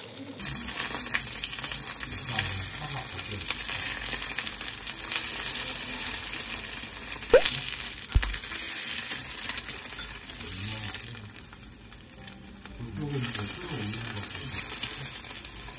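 Kimchi fried rice sizzling in a frying pan as it is stirred, a steady hiss that eases for a moment about two-thirds through. A sharp clink and a low knock come about halfway through.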